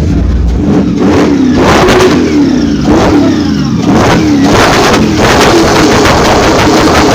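Car engine revved hard in repeated rising and falling surges about once a second, as in drifting. In the last couple of seconds it is held high with a rapid stuttering rattle.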